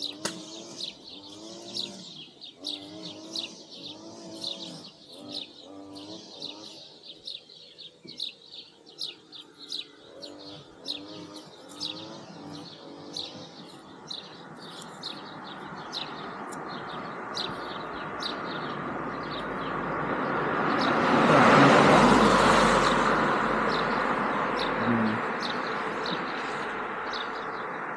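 Small birds chirping rapidly. Then a vehicle approaches and passes close by, loudest about two-thirds of the way in, and fades away.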